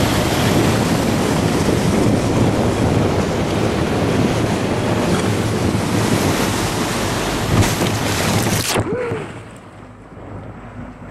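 Wind buffeting the microphone over rushing spray and wake water from a speedboat under way. About nine seconds in the rush cuts off sharply to a much quieter low rumble.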